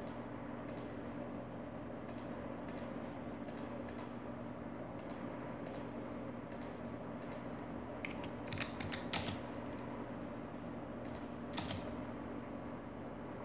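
Computer keyboard keystrokes: a short cluster about eight to nine seconds in and one more near the end, likely a CAD command being typed. Underneath are a steady electrical hum and faint, fairly regular clicks.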